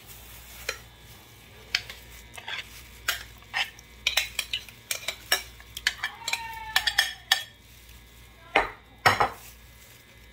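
Metal spoon scraping and knocking against a glass baking dish while spreading thick yogurt sauce over soaked bread: a string of irregular clicks and short scrapes.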